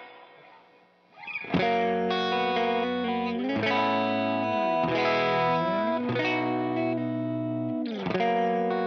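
Electric guitar played through an Ibanez CP10 compression sustainer pedal. After a brief near-silent gap, strummed chords ring on and are held, with notes bent down and back up midway and a fresh chord near the end.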